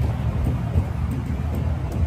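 Outdoor city street ambience: a steady, fluctuating low rumble with a few faint light ticks over it.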